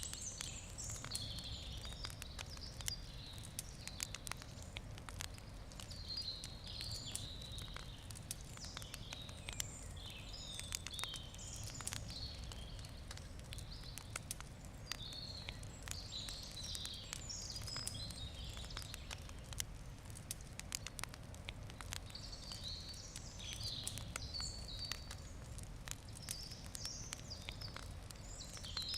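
Wood campfire crackling, with many sharp pops and snaps at irregular intervals. Small birds chirp and sing in bursts over a steady low rumble.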